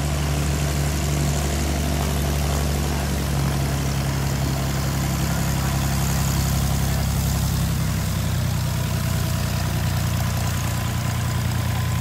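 Single-engine Cessna light airplane's piston engine and propeller running at low taxi power close by, a steady low drone. Its note shifts slightly a few seconds in and again about two-thirds of the way through as the power changes.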